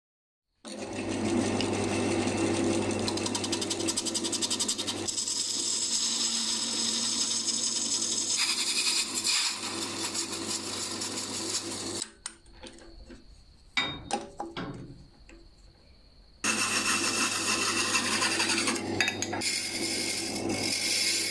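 Wood lathe motor humming steadily while a hand-held turning chisel cuts a spinning bamboo tube, a rough shaving and scraping noise. About halfway through, the lathe and the cutting fall away to a faint sound with a few knocks for about four seconds, then both start again.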